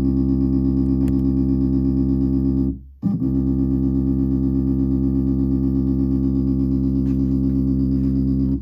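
Background music: a loud, steady held chord that breaks off briefly about three seconds in, then resumes.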